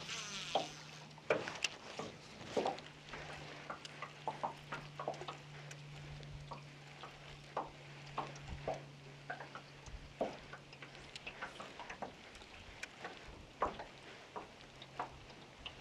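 Choppy wind-driven water lapping and slapping against the hull of a jon boat in irregular little splashes, over a steady low hum.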